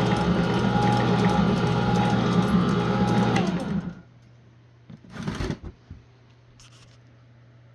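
Dual-shaft plastic shredder driven by a salvaged paper-shredder motor, running loudly with a gear whine and scattered clicks. About three and a half seconds in it is switched off and winds down, its pitch falling. A short scraping rustle follows about a second later.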